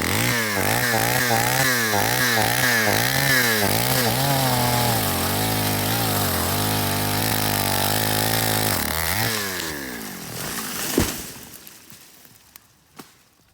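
Two-stroke chainsaw cutting, its engine pitch wavering quickly up and down, then holding steadier. About nine seconds in the saw drops off the throttle and fades away. A sharp thump follows, then a fainter knock near the end.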